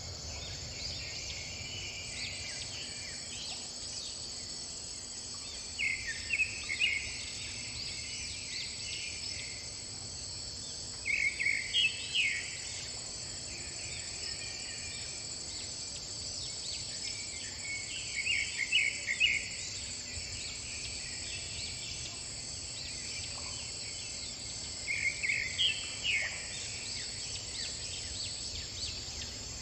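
Steady high insect chorus of crickets or cicadas. About every six or seven seconds it is broken by a short burst of high chirping calls.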